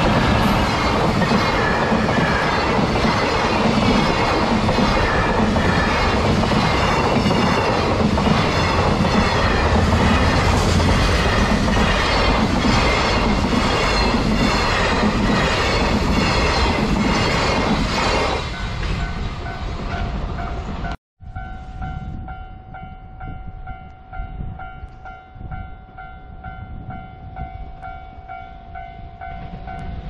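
A container freight train hauled by an EF210 electric locomotive passing close by: a loud rumble with an even, repeating clatter of wheels over rail joints, dying away about two-thirds of the way through. After that, a railway level crossing's alarm rings in steady repeated dings, about two a second.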